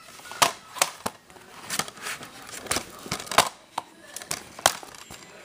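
Hands handling a plastic DVD case: irregular clicks, taps and crinkles of the plastic, about eight sharp clicks spread through a few seconds.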